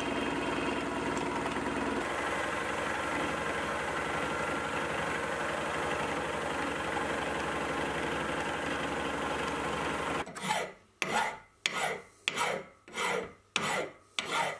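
Sieg X2.7L mini mill running steadily as a rounded-corner router bit cuts a fillet into an aluminium block. About ten seconds in it gives way to a hand file stroked back and forth across the aluminium corner, about one and a half strokes a second.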